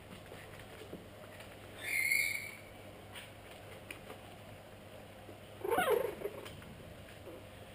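Pug-cross puppies yelping while they play-fight: a short, high-pitched squeak about two seconds in, then a louder yelp with a wavering pitch near six seconds in.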